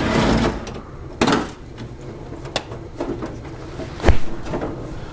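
Scattered clicks, knocks and rattles of hand tools and loose underbody parts being handled under a car, with the sharpest knock about four seconds in.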